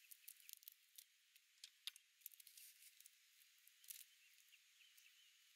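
Faint, quick crackles and crinkles of foil ramen seasoning sachets being slit open with a folding knife and handled. The crackles come in clusters, with the last burst about four seconds in.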